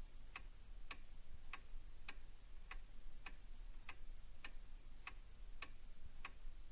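Freehub pawls on a mountain-bike rear hub ratcheting as the cassette is turned while being slid onto the splines. The clicks are sharp and evenly spaced, a little under two a second.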